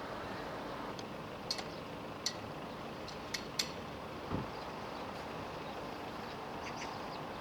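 Steady outdoor background noise, with a few sharp clicks in the first half and a dull thump a little past the middle.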